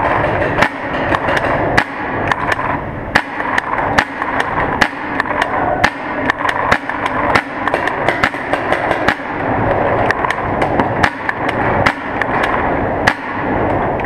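Paintball markers firing during a game, with paintballs smacking against barrels and rock walls. The sharp cracks come irregularly, two or three a second, over a steady background din in an underground rock tunnel.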